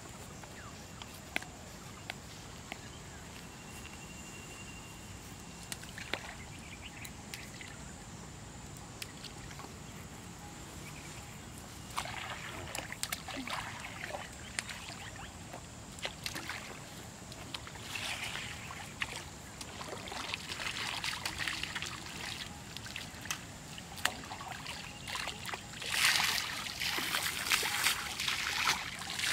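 Pond water splashing: bait plopping into the pond in irregular bursts from about twelve seconds in, then water scooped and flung with a steel plate, loudest near the end.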